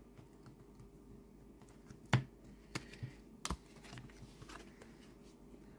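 Tarot cards handled on a table: a few sharp clicks and taps of card stock as cards are slid and set down, the loudest about two seconds in.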